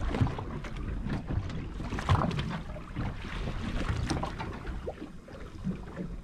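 Wind buffeting the microphone in uneven gusts, with water slapping against the hull of a boat on a choppy sea.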